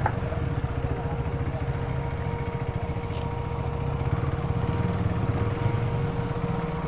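Motorcycle engine running at a steady pace, a fast even pulse with no revving, with a faint steady tone above it.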